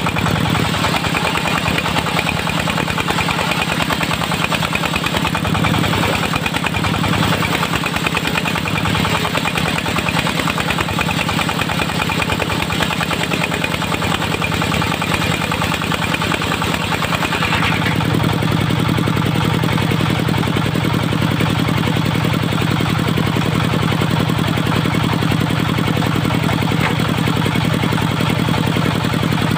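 Engine of a locally built portable circular sawmill running steadily. Its note changes about two-thirds of the way through and settles into a steadier, lower-pitched hum.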